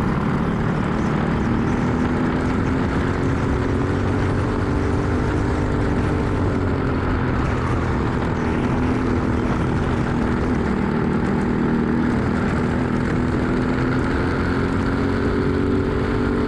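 Racing kart engine running hard, heard from the kart itself. Its note climbs, dips briefly about six seconds in through a corner, then climbs again along the straight near the end. Heavy wind and road rumble sit under it.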